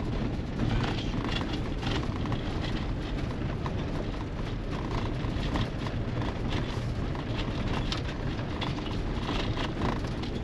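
Elddis Evolution 105 motorhome driving slowly over cobbles: a steady low road rumble with frequent rattles and knocks.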